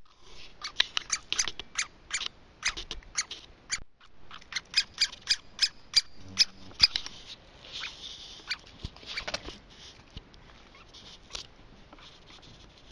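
Woodpecker pecking at a tree: a run of sharp, irregular taps, a few a second, that thin out and fade over the last several seconds.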